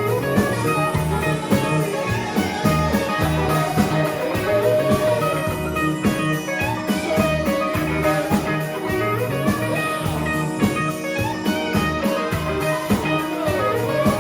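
Band playing a song: guitar over bass and drum kit, with a steady beat.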